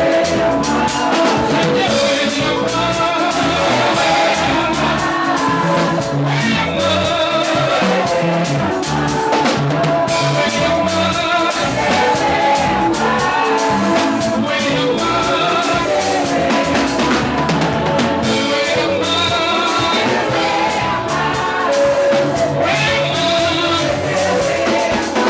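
A band playing, with a drum kit and guitar, and a voice singing over it.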